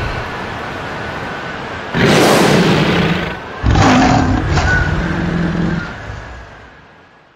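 A lion roaring as a sound effect: two long loud roars back to back, the second ending in lower grunting tones, then the sound fades away near the end.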